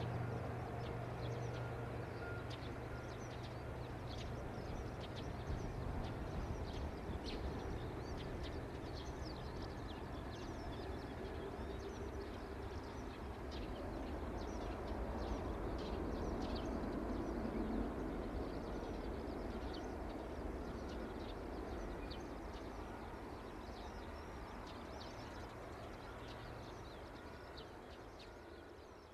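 Jet noise from an Airbus A380's four Rolls-Royce Trent 900 turbofans as it lands and rolls out on the runway: a steady rumble that swells again around the middle and then fades away as the aircraft rolls off. Small birds chirp throughout.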